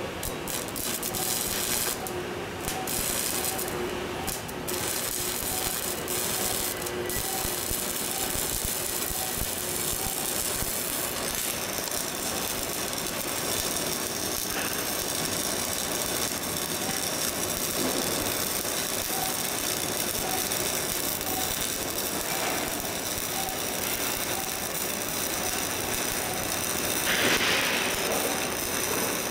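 Shielded metal arc (stick) welding arc crackling steadily as a bead is run up a vertical steel plate.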